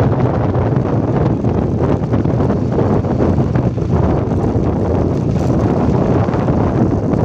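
Heavy wind buffeting the microphone while moving along a road, with a steady low engine hum underneath from the vehicle being ridden.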